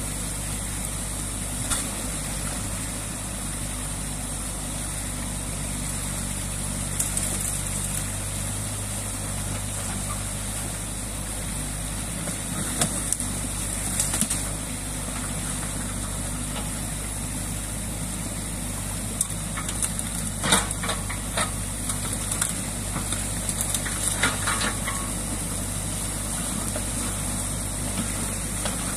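Diesel engine of a New Holland Kobelco E50.2C mini crawler excavator running steadily, over the constant rush of water pouring through a breached beaver dam. A handful of sharp knocks and snaps, most of them in the second half, as the bucket works the sticks of the dam.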